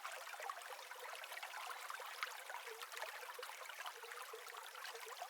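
Faint trickling and splashing of running water: an even hiss with small irregular drips and ticks, and no low end.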